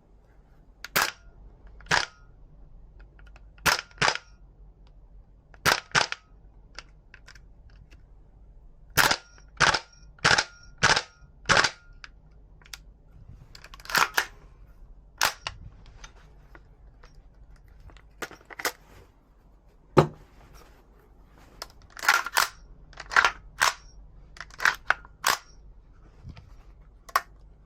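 Toxicant MCX Rattler gas blowback airsoft rifle firing single shots, each a sharp crack with the blowback action cycling. About twenty shots come at uneven spacing, several in quick pairs.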